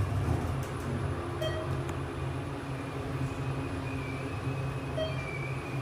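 Thyssenkrupp Endura elevator car travelling between floors: a steady low hum and rumble of the moving cab, with two brief faint tones about a second and a half in and near the end.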